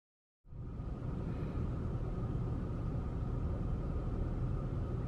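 Steady low rumble of a car heard from inside the cabin, starting abruptly about half a second in.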